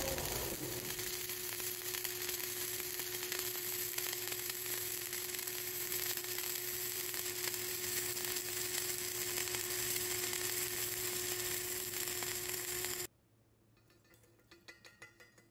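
Flux-cored arc welding: the arc's steady sizzling crackle as a pipe-to-plate fillet weld is run, cutting off abruptly about 13 seconds in when the arc is broken. Near the end, light metallic taps of a chipping hammer knocking slag off the weld bead.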